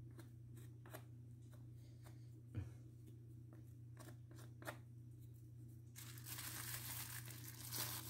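Quiet hand-handling sounds of small wood pieces over a steady low hum: a few faint taps, then about two seconds of rustling, tearing-like noise from about six seconds in.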